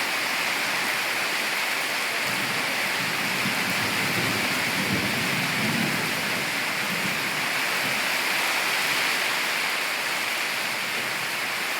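Heavy rain pouring down steadily, with a low rumble of thunder swelling and fading in the middle.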